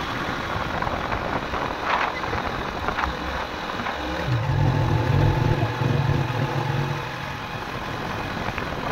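Small motorcycle riding over a rough gravel road: engine running with road and tyre noise, and a couple of sharp knocks about two and three seconds in. The low engine rumble grows louder for a few seconds in the middle, then eases off.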